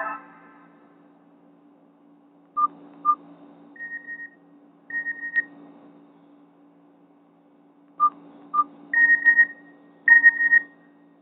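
Nokia 216 phone speaker playing a simple beeping tone from the Nokia 6790 Surge ringtone set. It gives two short lower beeps, then two higher fluttering beeps, and the pattern plays twice.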